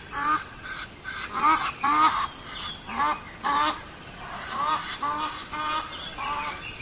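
Waterfowl calling over and over in short calls, many coming in quick pairs.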